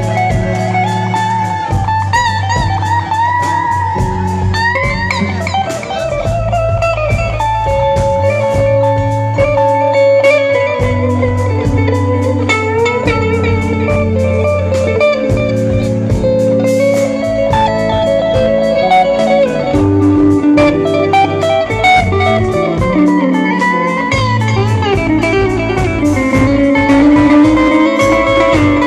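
Live band playing an instrumental passage without singing: a pedal steel guitar slides between held notes over a bass line and a steady drum beat.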